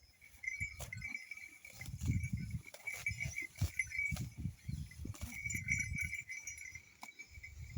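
Brass ghungroo bells on a bullock jingling continuously as the animal moves, with scattered sharp clinks and irregular low rumbling thuds underneath.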